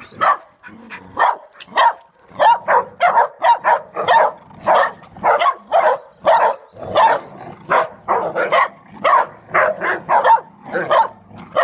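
Dog barking in excited play during a tug-of-war, a long run of short sharp barks about two to three a second, with a brief lull near the start.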